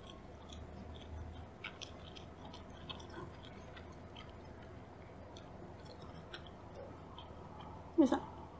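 Close-miked chewing of tuna sushi: soft, wet mouth clicks and smacks scattered throughout. Near the end comes a brief, louder voiced sound.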